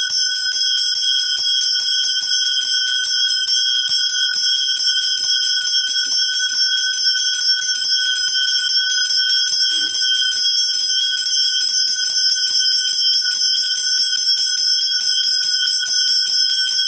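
Puja bell rung without a break during worship, its clapper striking in a rapid, even rhythm so that the ringing tone never dies away.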